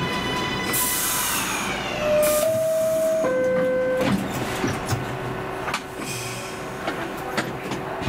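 R62A subway car standing still: a steady electronic tone that drops in pitch and fades, hisses of air, a short three-note electronic chime, then scattered clicks over a steady hum.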